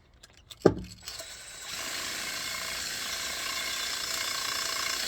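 Impact driver spinning a pipe-cleaning bit on the end of a copper pipe: after a single knock, a steady high scrubbing noise starts about a second in and runs on evenly as the pipe is cleaned.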